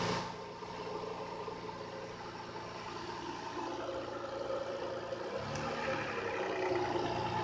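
Toyota 2JZ-GE VVT-i straight-six idling after a cold start, with one short rev about five seconds in that falls back to idle. The owner's complaint is a knocking when the throttle is released.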